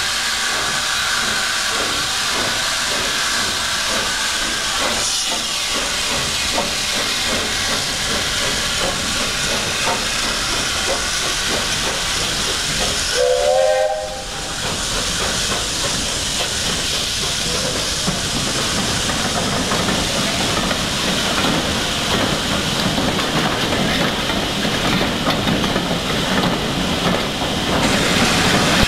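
Steam locomotives hissing steam, with a short steam whistle about halfway through. Then BR Standard 8P 71000, a three-cylinder Pacific, moves off past with its coaches amid a steady hiss of steam.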